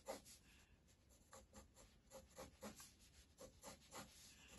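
Pencil sketching on paper: a faint run of short, light strokes, about three a second.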